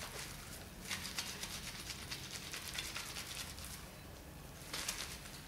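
Hands rubbing and squeezing wet, soapy cotton cloth in a steel bowl of lukewarm water: water splashing and dripping a few times, with a soft squelch of the wet fabric.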